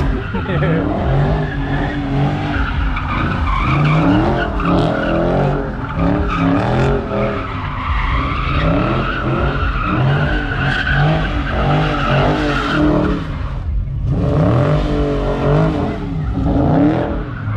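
A car doing donuts: its engine revs up and down over and over while the spinning tyres squeal, with a brief lull about fourteen seconds in.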